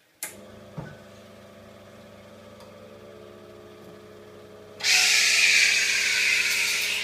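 Commercial espresso machine: a click, then its pump motor starts and runs with a steady hum. About five seconds in, the steam wand is opened and steam hisses loudly over the hum.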